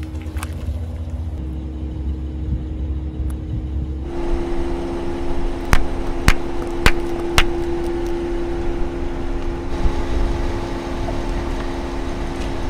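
A Rolls-Royce creeping forward with a steady low engine hum as its tyre rolls over a row of toothpaste tubes. Four sharp pops come in quick succession about halfway through as the tubes burst under the tyre.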